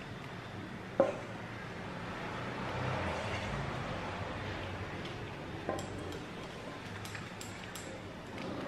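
Thick cake batter being scraped out of a stainless steel mixing bowl with a silicone spatula into a parchment-lined cake pan: soft, wet scraping and squishing, with one sharp knock of the bowl about a second in and a few light clicks of utensils later.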